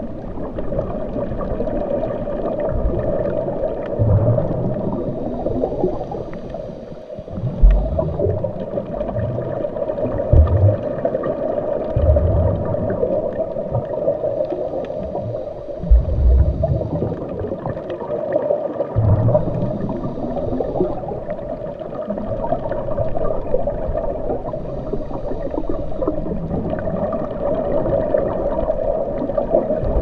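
Underwater ambience as picked up by a submerged camera: a steady muffled rush of water, with irregular low bumps a few seconds apart.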